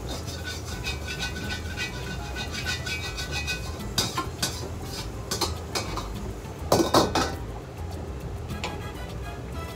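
Metal ladle scraping and knocking against a steel wok as fried rice is tipped out of it into a pot, a run of quick clinks and scrapes with louder clangs about four seconds in and again about seven seconds in, when the wok is set back on the burner. A steady low rumble of the lit gas wok burner runs underneath.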